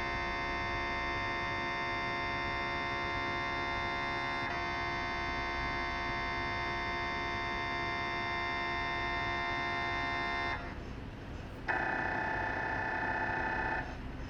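Philips 1.5T MRI scanner's gradient coils sounding a steady, many-toned hum during a scan sequence. It stops about ten and a half seconds in. After a second's pause a different, higher tone pattern sounds for about two seconds, then stops again.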